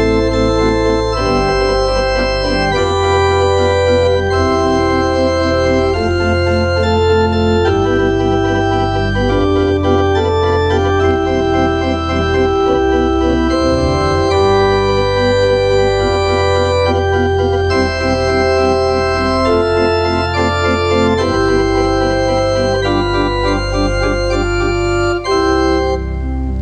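Church organ playing full sustained chords over a held bass line, the chords changing every second or two, with quicker repeated notes in the middle voices.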